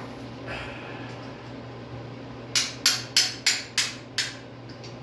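Hammer striking a punch on a Pontiac 389 V8 to knock a part loose: six quick, sharp metal blows, about three a second, starting about two and a half seconds in, over a low steady hum.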